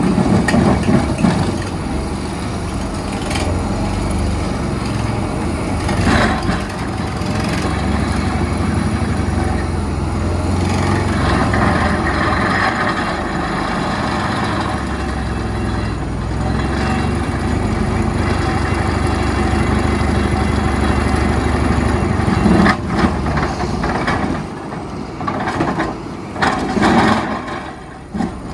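Terex RH30F hydraulic mining excavator's diesel engine working under load while its Xcentric XR80 vibrating ripper breaks into rock, with occasional sharp knocks and cracks of rock giving way, several of them near the end.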